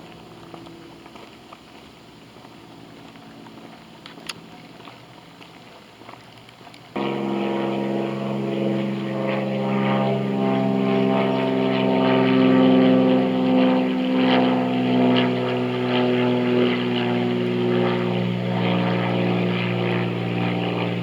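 A propeller aircraft engine running with a steady drone. It cuts in abruptly about seven seconds in, after a few seconds of faint background.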